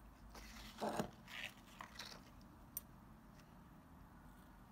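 Faint scissors snipping through layered organza ribbon, with crisp rustling of the stiff ribbon; the snips and rustles come in the first two seconds, with a single sharp click about three seconds in.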